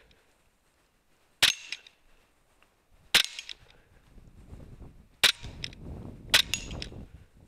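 Altaros SA Assassin semi-automatic PCP air rifle firing four shots, each a sharp crack, spaced one to two seconds apart.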